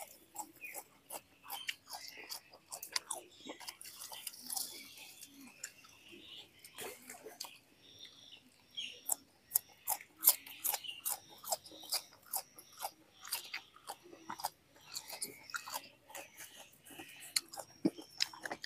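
A person chewing and biting raw green leaves up close, with irregular sharp clicks and wet mouth sounds.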